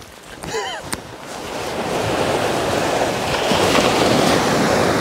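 Waves of the sea washing up a flat sandy shore, the hiss of the surf swelling after about a second and a half and then holding steady.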